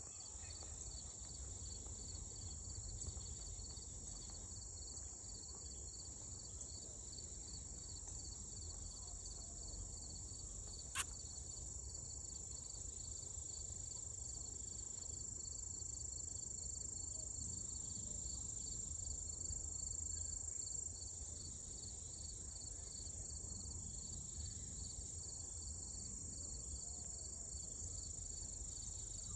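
Insect chorus, crickets or similar, with a steady high-pitched buzz and a second, lower trill that pulses evenly, over a low rumble. One sharp click about 11 seconds in.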